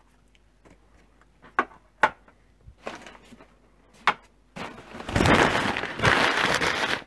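A few sharp taps and clicks, then about two seconds of loud rustling and crumpling of brown paper packaging near the end.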